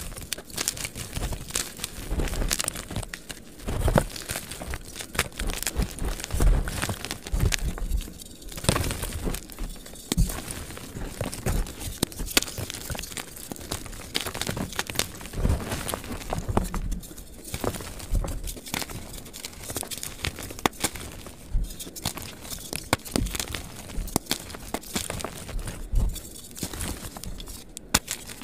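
Dyed gym chalk blocks crunching and crumbling as they are squeezed and broken apart in the hands, a dense, continuous run of crackles and crunches, played back sped up.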